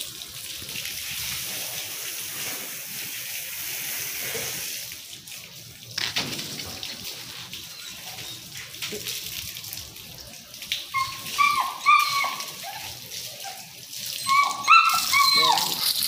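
Water spraying from a garden hose during a dog's bath, a steady hiss for the first few seconds. Then a dog whining in short, high, bending whimpers, starting about eleven seconds in and coming again near the end.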